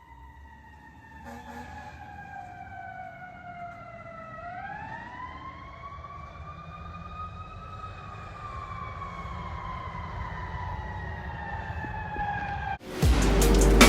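Fire truck siren on a slow wail: the tone falls, climbs again about four seconds in, then slowly falls, over a low engine rumble, and the whole grows steadily louder. About a second before the end the siren cuts off abruptly and a much louder, dense noise takes over.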